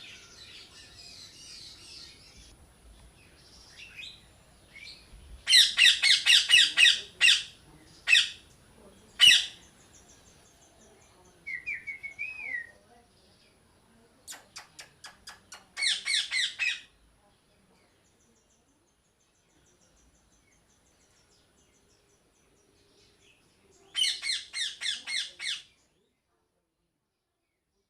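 Parrot squawking in loud bursts of rapid, harsh, repeated calls. A short warbling whistle and a run of quick clicks come between the bursts, with faint chirping from other birds behind.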